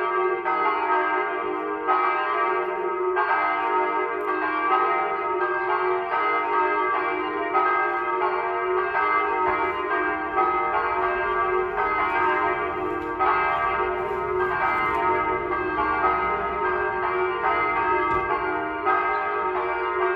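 Church bells ringing continuously. The strokes come quickly, about every half second to second, and their tones overlap into a sustained ringing.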